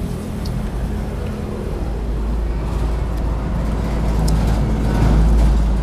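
Road traffic: a steady low motor-vehicle engine rumble that swells as a vehicle passes close about five seconds in, then falls back. A few light clicks of utensils on bowls are heard over it.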